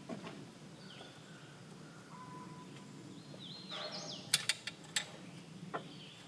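Birds chirping faintly over a low background hum, with a few sharp clicks about four to six seconds in.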